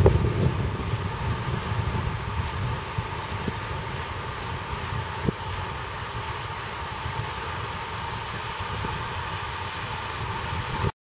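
Wind rushing and buffeting over a bicycle-mounted camera's microphone, with road rumble, as a road bike rides at speed. Two light knocks are heard partway through, and the sound cuts off abruptly just before the end.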